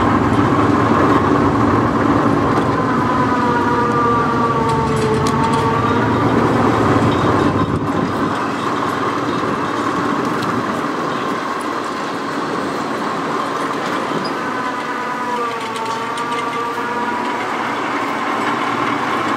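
Diesel boom-truck engines running steadily, with a whine that dips in pitch and comes back up twice, about three seconds in and again about fifteen seconds in, as the winch takes up load hoisting hay bales.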